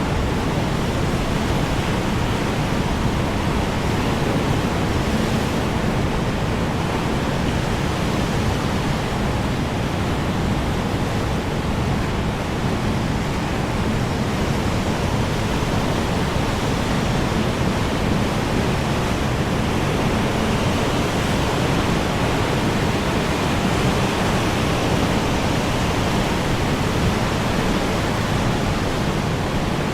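Strong wind blowing steadily: a dense, even rush heaviest in the low end, with no gusts or breaks.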